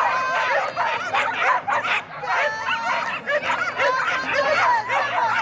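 Several dogs barking at once, a dense run of overlapping high barks with no break, the excited barking of flyball dogs waiting to race.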